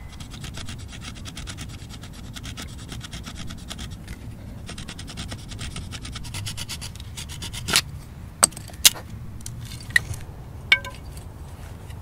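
A chipped stone flake scraping along a green stick in rapid strokes, about six a second, with a short pause near the middle. Then five sharp clicks or knocks over the next three seconds, one ringing briefly.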